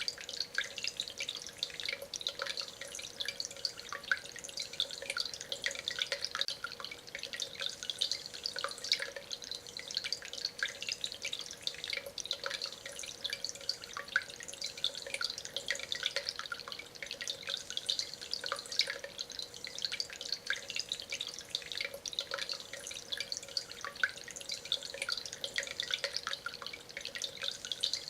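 Indoor concrete-and-stone tabletop water fountain running: water trickling and dripping continuously and irregularly over the stone, with a steady hum underneath.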